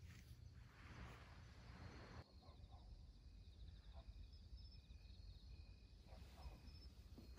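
Near silence: faint outdoor ambience with a low rumble, and from about two seconds in a few faint, short high chirps repeating.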